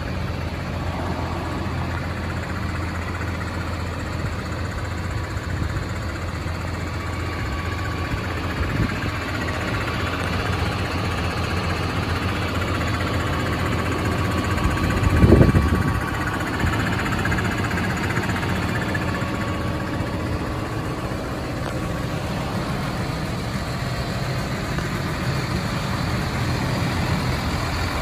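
Case Puma 185 tractor's six-cylinder diesel idling steadily, with a brief low thump about halfway through.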